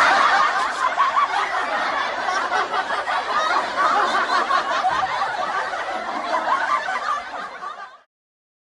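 Crowd laughing: many people laughing together in a continuous mass of laughter that fades out and stops near the end.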